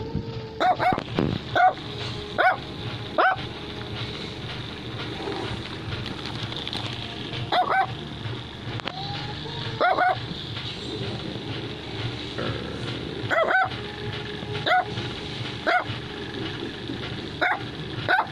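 Chinese Crested dog barking in short, sharp yaps, about a dozen of them in loose bouts, some coming in quick pairs.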